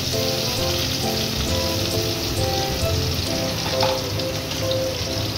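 Chopped onion and green chillies sizzling steadily in hot vegetable oil in an aluminium kadai, with background music playing over it.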